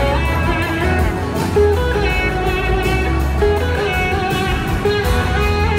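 Live blues-rock band playing: an electric guitar lead with bending notes over bass and drums, recorded from the audience.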